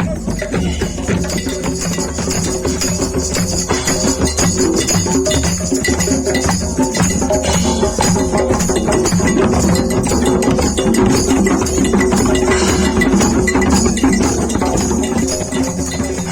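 Music with steady pitched instruments and fast percussion.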